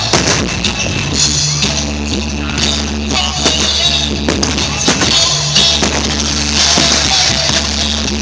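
Rock music playing loud, with a steady drum beat and held bass notes.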